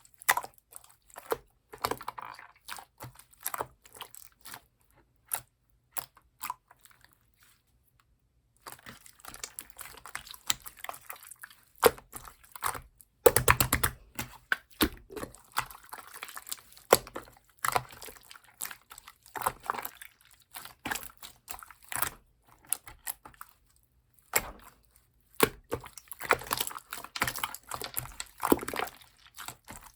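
Slime being squished and pressed by hand: irregular sticky clicks and small wet pops, with a near-silent pause about six to eight seconds in.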